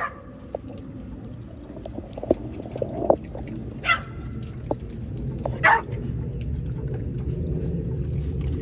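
A pit bull eating a piece of raw chicken: chewing and crunching with scattered clicks, and a few short sharp sounds, the loudest about four and six seconds in.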